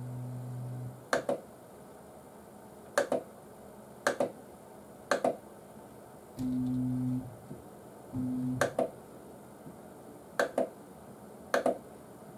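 3D printer running on TMC2208 stepper drivers: three brief steady low hums from the stepper motors during moves, and about seven sharp double clicks from the machine at irregular intervals of roughly a second, which are the loudest sounds.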